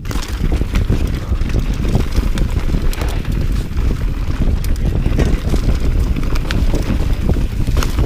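Wind buffeting an action camera's microphone on a fast mountain-bike descent, with the tyres running over loose dirt and many small clicks and rattles from the bike over the bumps.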